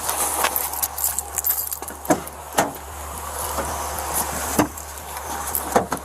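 Handling noise on a body-worn camera: a scatter of sharp knocks and clicks over a steady low hum and hiss.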